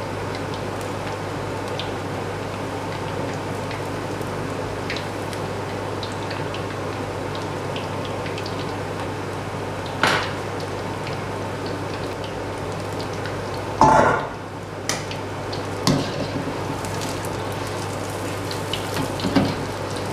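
Tempura-battered crayfish pieces deep-frying in hot oil in a wok, a steady sizzle throughout. A few sharp knocks of metal utensils against the wok break in, the loudest about two-thirds of the way through.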